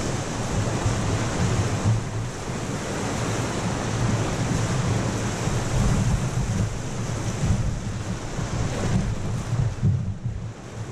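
Whitewater rapids rushing and splashing around a raft, with wind noise rumbling on the action camera's microphone.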